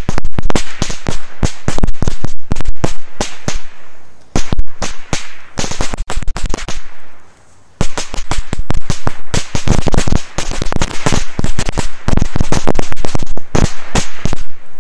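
Machine-gun belt firecrackers going off: a rapid, uneven string of sharp bangs. The string stops briefly about halfway, then a second run of bangs starts up and keeps going.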